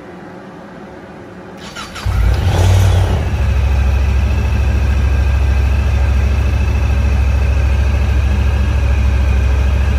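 Honda Talon side-by-side's parallel-twin engine cranking on the starter about a second and a half in, catching at about two seconds with a brief flare of revs, then settling into a steady idle.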